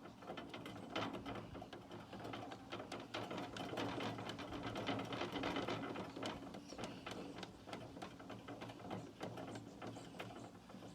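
Rapid metallic clicking and rattling from working an old metal can of varnish stain, loudest in the middle.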